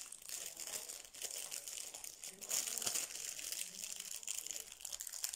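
Small clear plastic bags crinkling and rustling as they are handled, in many short irregular crackles.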